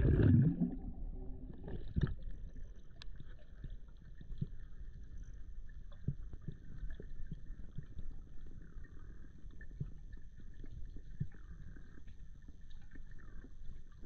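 Underwater sound picked up by a diver's camera: a loud splash of going under at the start, then muffled low rumbling with scattered faint clicks as he swims in murky water.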